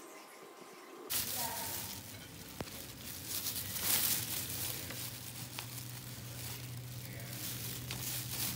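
Kitchen knife slicing pears on a cutting board: scattered crisp, wet cuts. A steady low hum sets in abruptly about a second in.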